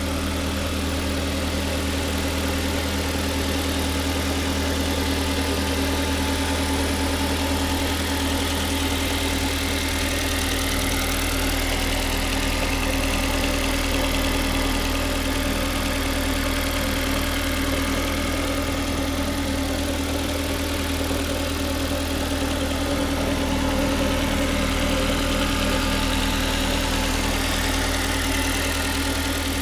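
Ford Mondeo Mk3 engine idling steadily from cold, with the knock the owner hears only when the engine is cold.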